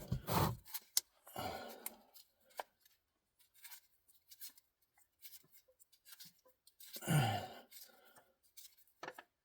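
Faint, scattered clicks and scrapes of a Wix XP spin-on oil filter being unscrewed by hand after it was loosened with a strap wrench, with a short louder noise about seven seconds in.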